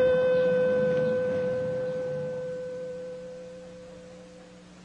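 A single clear musical note with its overtones, starting sharply and fading away steadily over about four and a half seconds: the closing note of a short musical sting.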